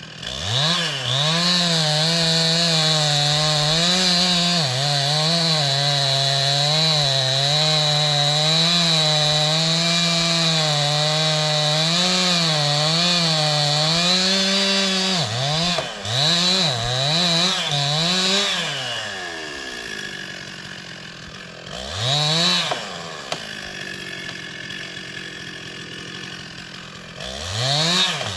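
Stihl two-stroke chainsaw held at full throttle and cutting wood for about fifteen seconds, its pitch dipping and recovering under load. It then gives a few quick throttle blips, drops to idle, and revs briefly twice more.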